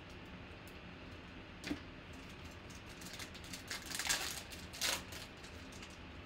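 Foil wrapper of a 2020 Panini Prizm football card pack crinkling and tearing as it is ripped open, loudest about four and five seconds in, after a single click near two seconds in.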